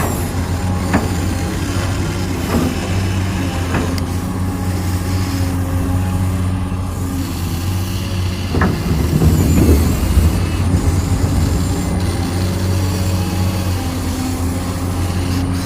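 Small electric motors and plastic-and-metal gearboxes of a remote-control construction model whirring steadily, with a few sharp clicks and a louder, rougher stretch about halfway through.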